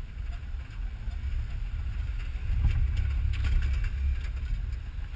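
Off-road 4x4 driving along a dirt forest track, picked up by a camera mounted on the vehicle's rear: a choppy low rumble of the running vehicle and wind on the microphone, growing louder about halfway in, when a spell of rattling and knocking comes in.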